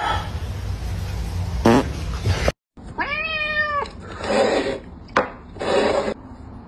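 A domestic cat gives one meow about three seconds in, rising, holding and then falling in pitch. Before it comes a steady low rumble with one short sharp sound; after it, a few short scraping noises.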